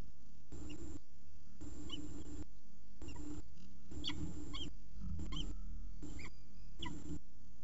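Peregrine falcon chicks giving short, high-pitched begging cheeps, about eight spread over several seconds while the male feeds them. A background hum and hiss keeps cutting in and out.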